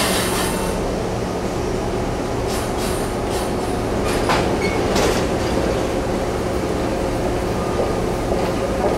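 PATCO rapid-transit train in its cars as originally built, rolling slowly along the platform and coming to a stop. There is a steady low rumble throughout, with a brief hiss at the start and a few sharp clicks from the running gear about three to five seconds in.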